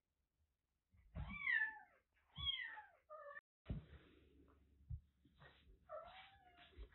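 Kittens meowing: two loud, high meows that fall in pitch in the first couple of seconds, then several shorter mews, with a soft knock or two in between.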